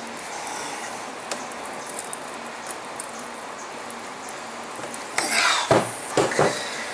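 Metal tool working against the rusted bayonet: a few faint clicks, then about five seconds in a short scrape and several sharp metallic knocks as a seized part is forced and refuses to move.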